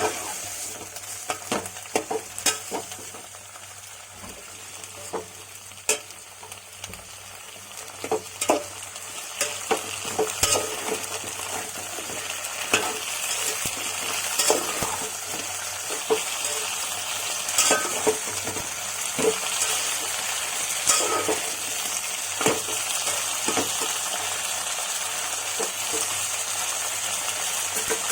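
Green chillies, tomatoes and brinjal pieces sizzling as they fry in oil in a pan, with a spoon clicking and scraping against the pan as they are stirred. The sizzle grows louder about ten seconds in.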